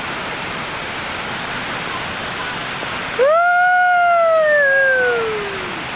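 Waterfall rushing steadily. About halfway through, a louder long pitched sound cuts in, rises briefly and then slides slowly down in pitch for a couple of seconds before fading.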